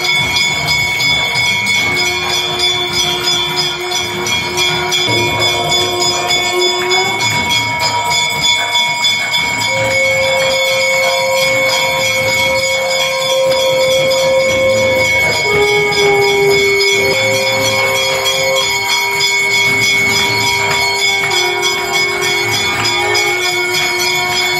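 Temple bells ringing continuously and rapidly over a dense clattering rhythm, with long held notes that step to a new pitch every few seconds.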